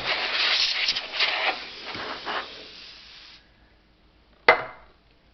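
Can of compressed air hissing in several spurts as it blows dust off a typewriter, then stopping suddenly about three and a half seconds in. A single sharp knock follows about a second later.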